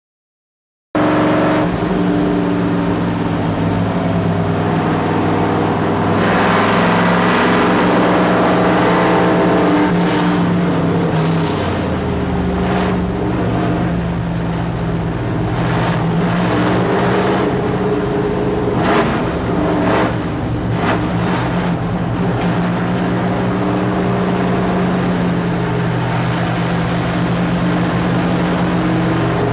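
A race car's engine heard from inside the cockpit, running steadily at low revs; it starts suddenly about a second in, rises a little around six seconds in and settles back lower about halfway through. Scattered short clunks and rattles sound over it through the middle.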